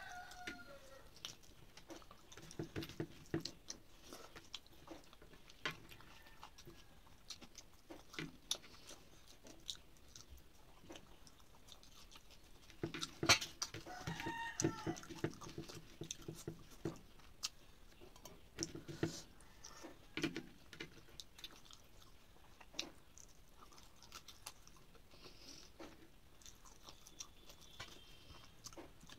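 Close-up eating sounds: a person chewing rice and fish curry, with scattered wet mouth clicks and smacks and fingers mixing the rice on a plastic plate. There is a louder cluster of these sounds about 13 seconds in.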